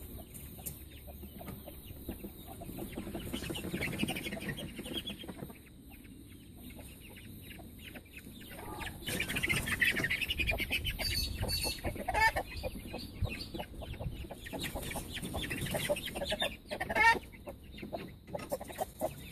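Chickens clucking and calling, louder through the middle while a young bird is being grabbed by hand, with scuffling in the mulch and litter underfoot.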